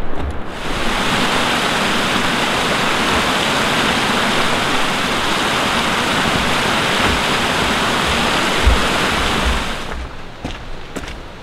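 Small forest creek cascading over rocks: a steady rush of water that comes in about a second in and cuts off abruptly near the end, leaving faint footsteps on the trail.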